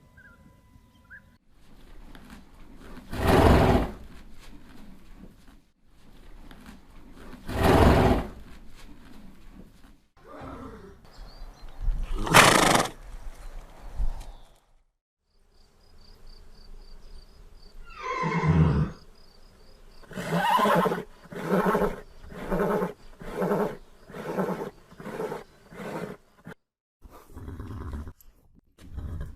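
Horses neighing: three loud separate calls a few seconds apart, then a longer neigh falling in pitch, followed by a run of about nine short calls, roughly one every two-thirds of a second.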